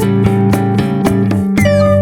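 Background music: an upbeat instrumental track with plucked guitar notes over a steady bass.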